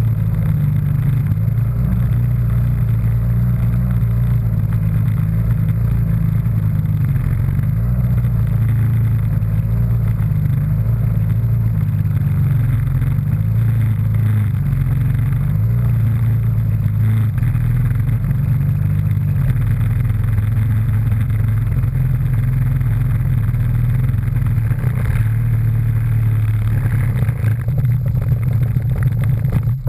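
Personal watercraft engine running steadily, heard from close by on the hull, its low hum holding an even pitch; it cuts off at the very end.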